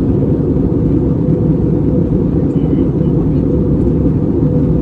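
Steady cabin noise inside an Airbus A320 in flight: a loud, even low rumble of engines and airflow.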